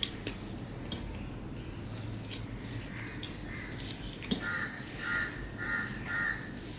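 Fingers mixing rice with fish curry on a steel plate: soft squishing and light fingertip clicks against the metal, with one sharper tap about four seconds in. Near the end a bird calls four times, about half a second apart.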